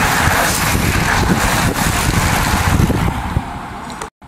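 A pack of road-racing bicycles rushing past close by on a concrete path, their tyres hissing, with wind buffeting the microphone. The sound dies down after about three seconds as the last riders go by, then cuts off abruptly.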